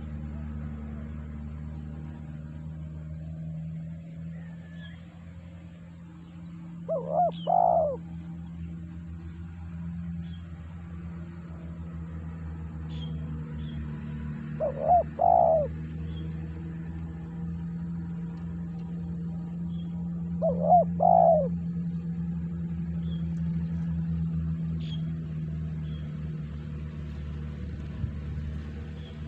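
Spotted dove cooing three times, each a short phrase of a few rising-and-falling notes, about seven seconds apart, over a steady low hum. Faint high chirps of small birds come in now and then.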